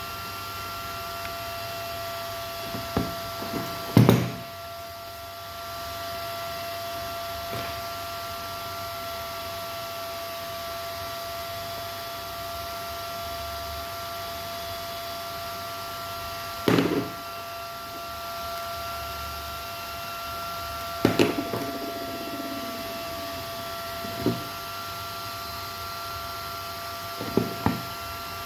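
Scattered knocks and clicks of tools or parts being handled on a workbench, the loudest about four seconds in and two more clusters later on. Under them runs a steady background hiss with a few constant high thin tones.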